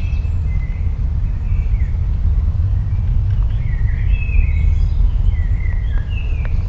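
A steady low rumble, like wind buffeting the microphone, with birds calling in short whistled chirps over it several times.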